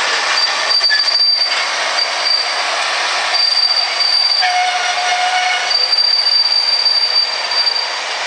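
International Harvester farm-stock tractor's diesel engine running loudly, with a thin high whine that cuts in and out and a brief lower tone near the middle.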